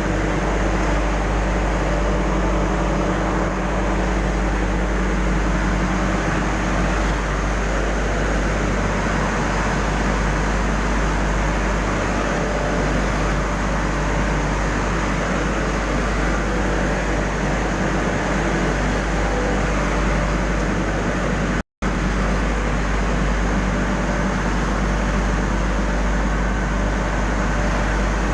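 Steady, loud machinery noise of an industrial furnace plant running, with a deep hum underneath and a few steady tones. The sound cuts out for an instant about 22 seconds in.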